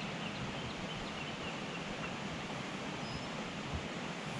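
Steady rush of water from a stream, swollen by heavy rain, pouring into the lake. A few faint, short, high bird chirps come in the first second or so.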